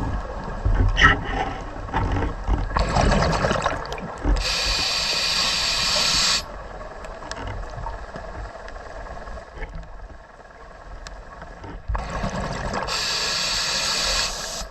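Scuba diver breathing through a regulator underwater: a long, even hiss of inhalation about four seconds in and again near the end, with a rush of exhaled bubbles before each.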